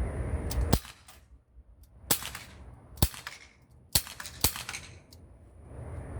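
CO2-powered Glock 19 BB pistol fired five times at an uneven pace, each shot a sharp crack.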